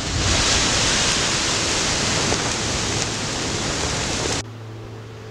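Volcanic eruption from a crater vent: a loud, steady rushing hiss that cuts off abruptly about four and a half seconds in. A fainter rush with a low steady hum follows.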